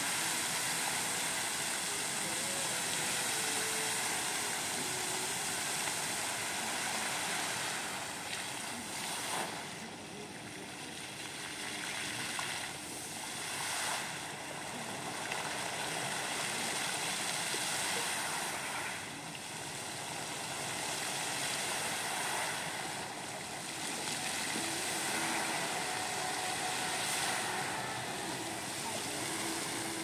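Fountain water jets spraying and splashing back onto a lake, a steady rushing hiss that dips and swells several times as the jets change pattern.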